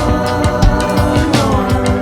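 Instrumental rock music: sustained guitar or synth notes over a steady drum beat, with one note gliding in pitch through the middle.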